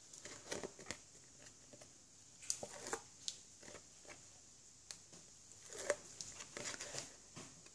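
Faint paper rustling and small scattered clicks as fingers pick at and peel the paper backing off strips of double-sided tape on a sheet of cardstock.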